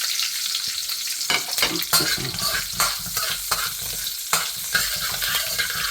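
Hot coconut oil sizzling in a pan with a mustard-seed, dal and curry-leaf tempering, with frequent sharp crackles and clicks starting about a second in.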